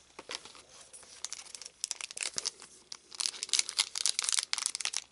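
A foil trading-card booster pack being handled and torn open along its crimped top: crinkling and tearing, sparse at first, then dense and busier from about three seconds in.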